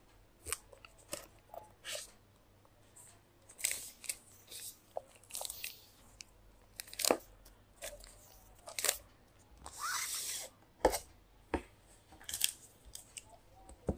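Paper and cardboard packaging being handled: a documentation envelope and its card inserts slid out and shuffled, in scattered taps and short rustles, with one longer rustle about ten seconds in.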